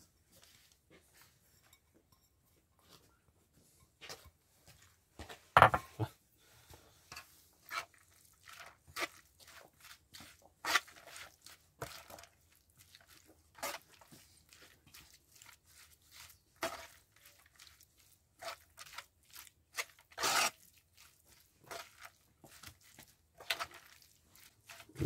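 Mince, soaked bulgur and spices being worked together in a bowl by hand and spoon: a string of irregular short squelches, scrapes and clicks, with two louder knocks about five seconds in and about twenty seconds in.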